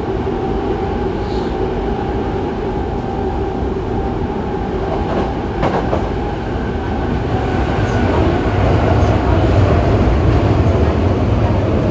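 Yokohama Municipal Subway 3000A-series train with a Mitsubishi GTO-VVVF inverter running through a tunnel, heard from inside the car. A steady rumble of wheels and motors carries high steady whine tones that fade about halfway through, after which the low rumble grows louder.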